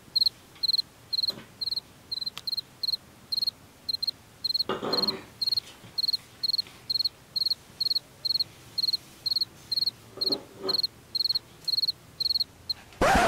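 A cricket chirping steadily, about three short high chirps a second, as night ambience. Two brief soft noises come through underneath, about five and ten seconds in.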